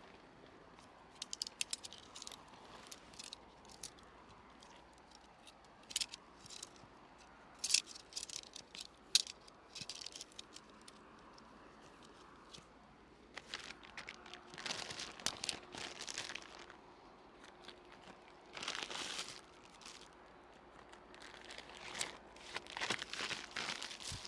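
Dry material being handled by hand, crinkling and crunching, with scattered sharp clicks and snaps in the first half. Longer rustling passes follow in the second half.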